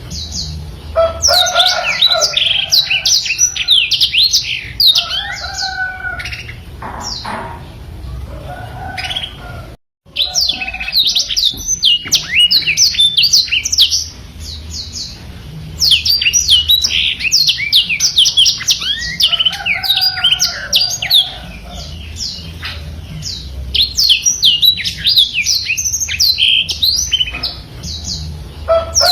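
Blackthroat (black-throated canary) singing a fast, continuous twittering song of high chirps and trills, with a few lower notes mixed in. The song cuts out briefly about ten seconds in, then resumes.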